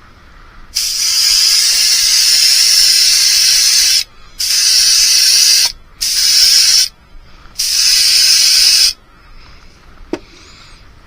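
Paint being sprayed onto a fishing lure in four hissing bursts, the first about three seconds long and the rest shorter, each cutting off sharply. A single sharp click near the end.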